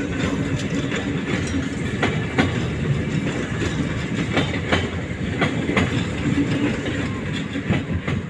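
Electric commuter train running past, its wheels clattering over rail joints in an uneven run of clicks over a steady rumble.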